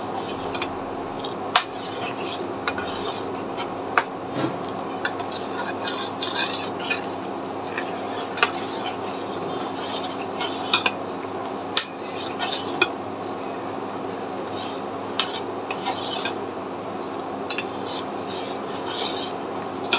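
A spoon stirring milk tea in a pot on the stove, with scattered scrapes and light clinks of the spoon against the pot over a steady hiss and faint hum.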